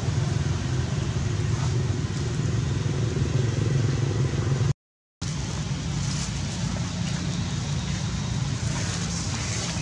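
Steady low rumble of outdoor background noise, with no clear individual events. It drops out completely for about half a second around five seconds in, at an edit, then resumes.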